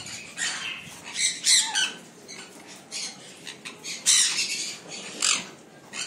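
Caged parrots squawking: a series of short, harsh screeches at irregular intervals, the loudest about a second and a half in and again about four seconds in.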